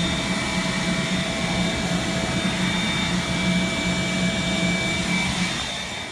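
Wet/dry shop vacuum motor running steadily with a high whine while condenser coils are vacuumed clean, then switched off about five and a half seconds in and winding down.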